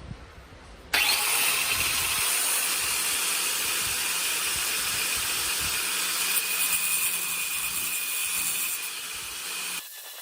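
Makita RT0700C compact router switched on about a second in and running at full speed with a steady high-pitched whine. It is switched off near the end, and the motor's tone fades as it spins down.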